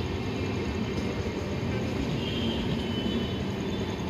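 LHB passenger coaches of a train rolling past on the rails, a steady rumble of wheels on track.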